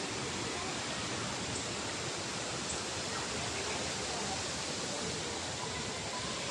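Steady rush of running water, an even hiss that holds at one level throughout.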